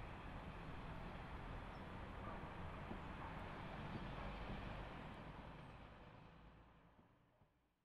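Steady outdoor ambience: an even wash of noise over a low rumble, fading out over the last three seconds.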